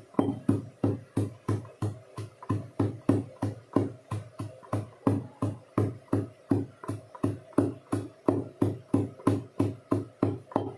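A wooden pestle pounding garlic in a steel bowl, striking steadily about three times a second.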